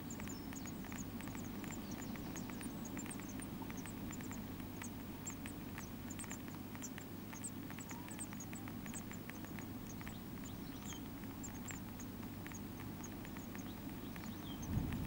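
Great tit nestlings begging with many short, high-pitched cheeps over a steady low hum. A dull thump near the end.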